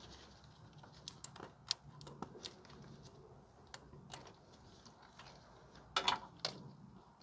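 Light, scattered clicks and ticks of a plastic ABS sensor wire harness being worked into its retaining clips by hand, with a louder clatter of clicks about six seconds in.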